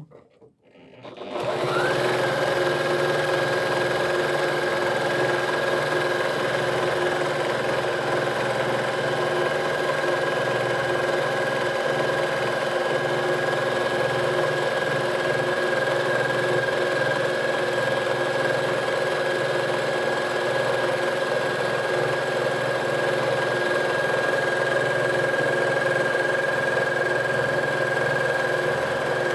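Janome quilting machine on a quilting frame running steadily at speed while free-motion stitching. Its motor whine rises as it starts up about a second and a half in, then holds at an even pitch.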